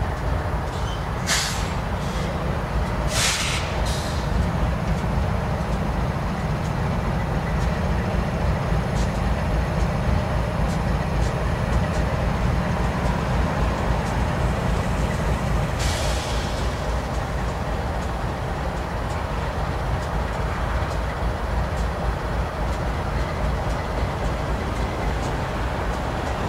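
Diesel freight train running past: a steady low locomotive rumble that eases about two-thirds of the way through, with short sharp hisses of air brakes about a second in, at three seconds and again later.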